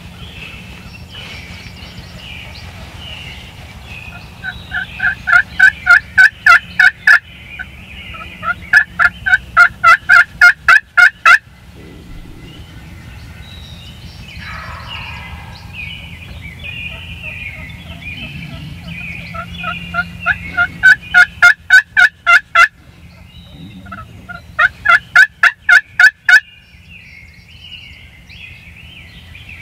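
Turkey yelping: four runs of loud, evenly spaced yelps, about four a second, each run building up in loudness. Fainter, choppy bird calls go on between the runs.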